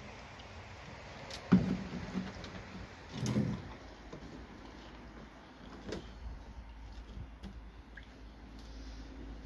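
Handling noises as a plastic electric bilge pump is fitted into a boat's bilge: a sharp knock about a second and a half in, a rougher scrape about two seconds later, and a smaller click near six seconds, over a low rumble.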